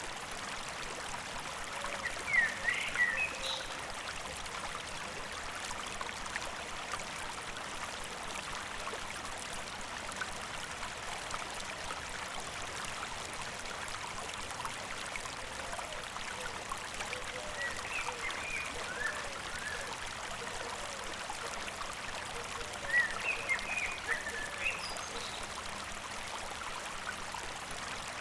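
Small stream flowing and babbling steadily, with brief clusters of high chirps about two seconds in, again midway, and near the end.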